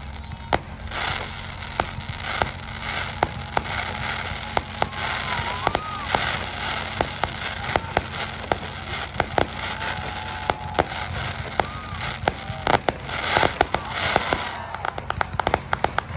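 Fireworks display: repeated sharp bangs and crackling throughout, with a quicker cluster of bangs about thirteen seconds in.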